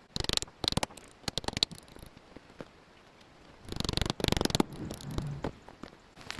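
Irregular clicks, knocks and rustling of tools and equipment being handled and moved around, with a denser burst of rustling about two-thirds of the way through.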